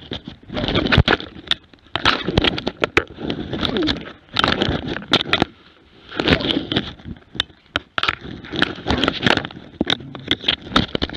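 Scraping, rustling and knocking in bursts every second or two from a camera strapped to a hunting dog as the dog moves about, with many sharp clicks.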